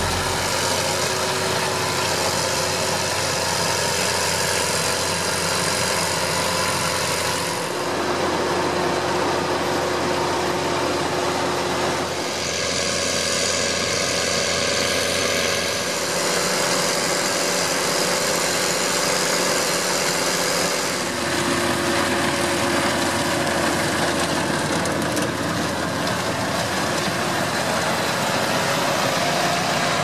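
New Holland T7030 tractor engine running steadily under load together with the noise of working potato-lifting machinery: the front-mounted haulm topper and the trailed potato harvester. The mix changes abruptly several times.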